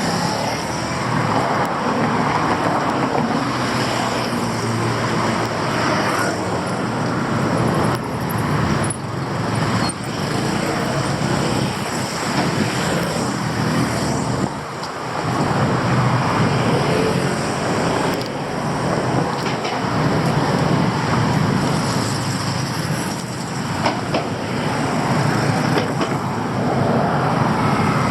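City street traffic: a steady, loud wash of passing vehicles' engines and tyre noise.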